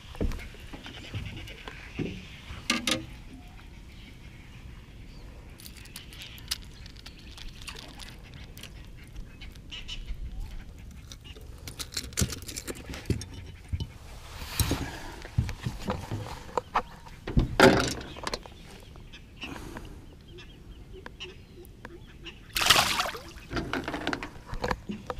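Scattered knocks, clicks and rustles of handling gear aboard a small boat, with a few louder knocks, the loudest about two thirds of the way in.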